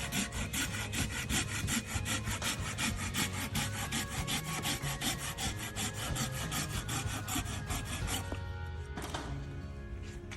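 A Silky hand saw cutting through a firewood log, worked two-handed in fast, even back-and-forth strokes of about four a second. The sawing stops about eight seconds in.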